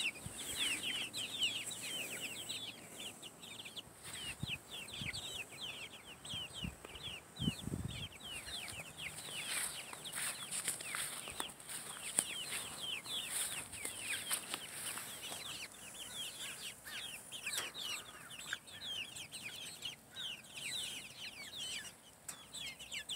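A flock of young Leghorn pullets peeping continuously: many short, high, falling cheeps, several a second.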